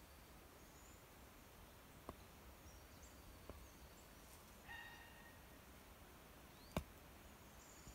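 Near-silent woodland ambience: faint high bird chirps, a short pitched bird call about five seconds in, and a few soft clicks, the sharpest near the end.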